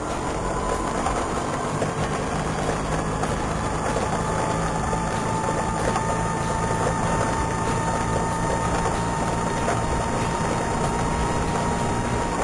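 Vespa scooter running with a high, siren-like whine held at one steady pitch over its low engine note; the whine stops near the end.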